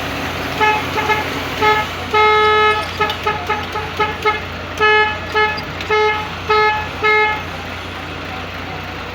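Telolet bus horn sounding a rhythmic run of about a dozen short and long toots, one of them held for over half a second, stopping about seven and a half seconds in, over a steady low hum.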